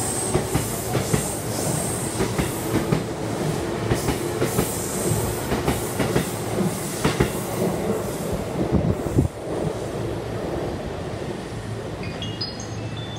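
JR East E233-6000 series electric commuter train pulling out of the station and rolling past, its wheels clacking rhythmically over the rail joints. The sound drops off about nine seconds in as the last car clears.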